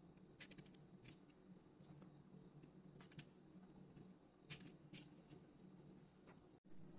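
Near silence with a few faint clicks and crisp cuts as a knife slits small purple eggplants (brinjals) by hand.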